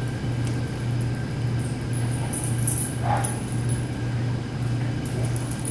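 A dog gives one short whimper about three seconds in, over a steady low hum.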